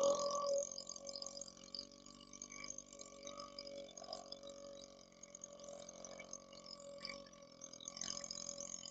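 A man belching after chugging a carbonated cherry Coke: a loud, long burp ends about half a second in, and quieter burps follow, swelling again near the end.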